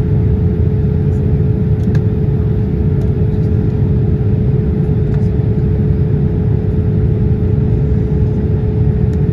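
Cabin noise of a Boeing 787-8 in flight, heard from a window seat over the wing: a steady deep rumble of its Rolls-Royce Trent 1000 engines and rushing air, with a constant hum held on one note. A few faint clicks sound over it.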